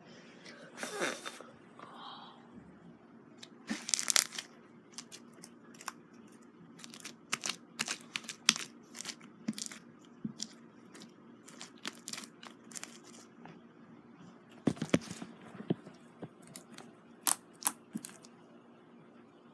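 Slime being squeezed and stretched by hand, giving irregular sharp pops and crackles, some much louder than others.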